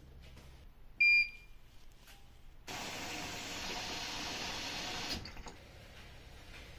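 A single short electronic beep from a Bosch washing machine's control panel, followed about a second and a half later by a steady hiss lasting about two and a half seconds that stops abruptly.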